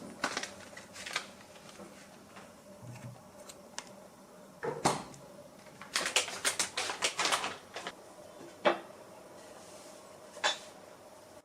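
Light clicks and knocks of small objects being handled, with a quick run of clicks between about six and seven and a half seconds in, over a faint steady hum.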